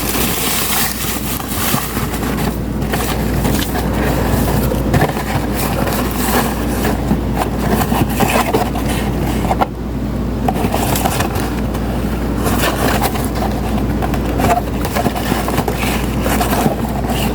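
Continuous close handling noise: rustling, scraping and frequent clicks, over a steady low hum.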